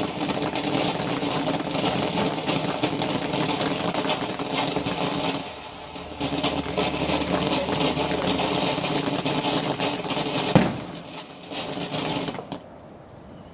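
A steady, pitched, motor-like drone that dips briefly about five and a half seconds in, then resumes and stops about twelve seconds in. A single sharp crack comes shortly before it stops.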